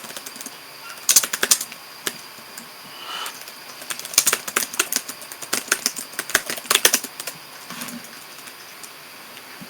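Typing on a computer keyboard: quick runs of key clicks, a short burst about a second in and a longer one a few seconds later.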